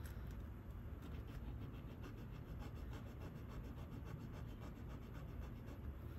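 Faint, quick, rhythmic scratching: a piece of metal jewelry being rubbed back and forth against a testing surface to test it for sterling silver.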